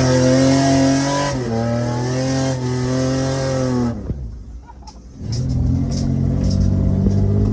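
Straight-piped RB30 straight-six in a Nissan Patrol running hard under throttle. The pitch holds, dips briefly about a second and a half in, then falls as it comes off the throttle. The sound drops away for about a second, then the engine returns at a lower pitch.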